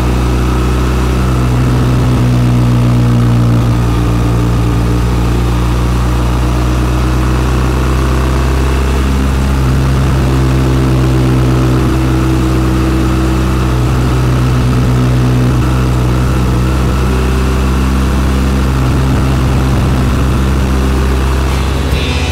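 Motorcycle engine running steadily on the road, its pitch stepping up and down a few times.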